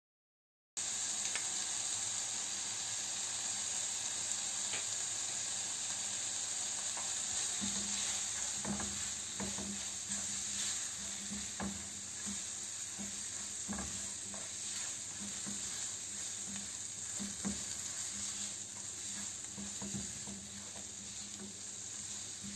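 Chicken pieces and onion frying in a nonstick pan, a steady sizzle that starts abruptly less than a second in, with short scrapes and taps from a silicone spatula stirring them now and then.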